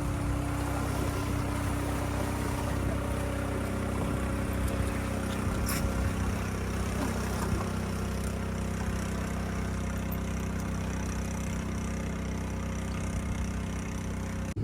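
Engine running at a steady speed, a constant even hum.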